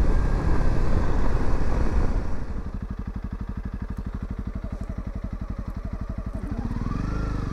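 Honda CRF300 Rally's single-cylinder engine running under the rider. It is loud and rough for about two seconds, then drops to a steady, even low-rpm pulsing, and picks up again near the end.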